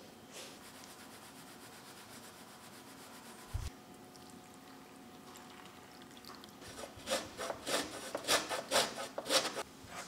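Dry flour being worked in a glass mixing bowl: faint kitchen hiss with one soft knock, then near the end a run of quick scratchy rubbing strokes, about four a second for two to three seconds.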